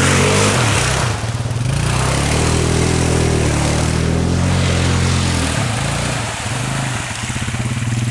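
ATV engine running hard through mud and water, its pitch rising and falling as the throttle is worked, with a thick wash of splashing and spinning-tyre noise.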